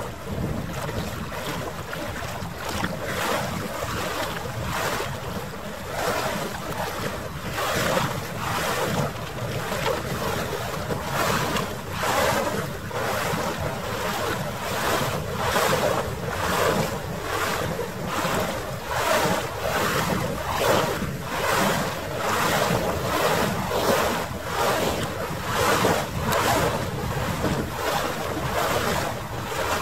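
Harbour waterfront ambience sped up nearly three times: wind buffeting the microphone over water lapping, in quick regular surges about one and a half a second.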